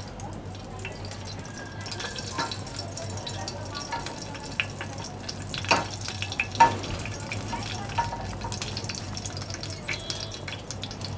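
Mustard seeds crackling in hot oil in a small pan: a steady sizzle with scattered sharp pops, the two loudest a little past the middle. This is the tempering stage, when the seeds are left to splutter before the next spices go in.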